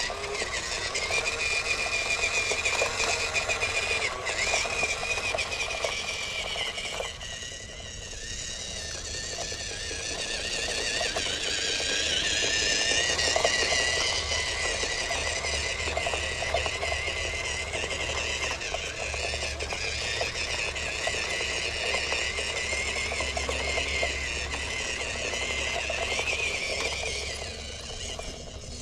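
Whine of an RC car's brushed 370 electric motor and single-speed gearbox as it drives, the pitch rising and falling with the throttle. It drops off about seven seconds in and climbs again a few seconds later.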